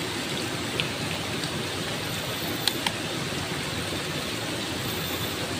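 Steady rushing of flowing river water, with a few faint clicks about a second in and again near three seconds.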